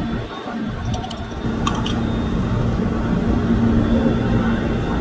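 Steady background hum with a few light metallic clicks about one to two seconds in, as the brake caliper's retaining pin is put back in.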